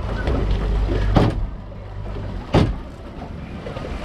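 Fibreglass boat hull slapping on the swell: two sharp slaps about a second and a half apart, over a low rumble that eases off after about a second.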